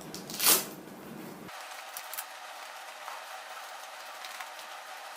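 Leather motorcycle gauntlet glove being pulled onto a hand: one brief rustling swish about half a second in, then faint handling sounds over low hiss.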